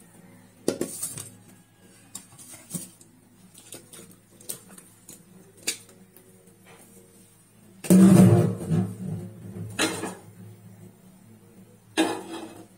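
Kitchen pot and bowl handling: scattered knocks and clinks, with the loudest clatter about eight seconds in and another near the end.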